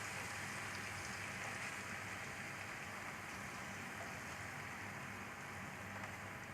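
Marinated chicken pieces sizzling steadily as they shallow-fry in oil.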